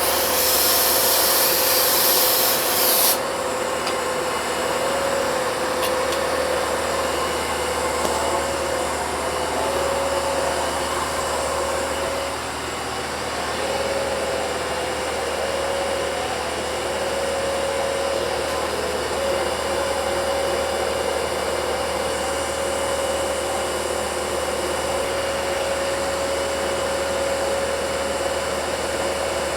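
CNC milling machine with an end mill cutting an aluminum block, running steadily with a constant mid-pitched tone. A loud hiss sits over it for the first three seconds and cuts off suddenly.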